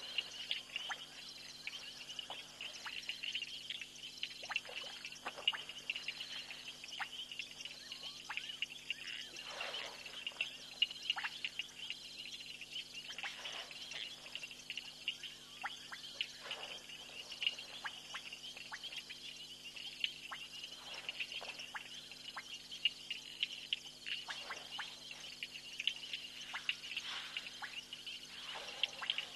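Night chorus of frogs and insects at a waterhole: a steady high-pitched trilling throughout, with scattered short calls that fall in pitch.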